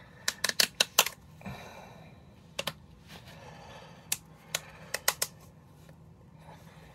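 Plastic lid of a pickle tub being pried open by hand: a quick flurry of sharp clicks and cracks in the first second, then scattered single clicks, with a little soft rustling in between.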